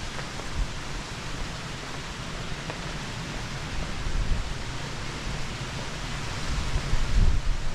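Wind blowing across the microphone: a steady rushing hiss with gusty low rumbling buffets, gusting harder near the end.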